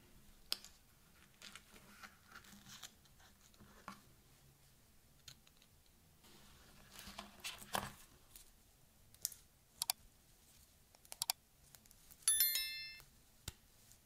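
Soft handling sounds of an iPhone box and its contents: paper and cardboard rustling, with light clicks and taps as the phone, paper insert and coiled USB-C to Lightning cable are lifted out. Near the end comes a short, bright, bell-like chime, the loudest sound.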